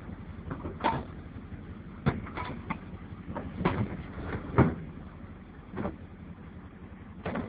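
A vehicle running with a steady low rumble, over which come about eight irregular sharp knocks and clunks, the loudest a little past halfway.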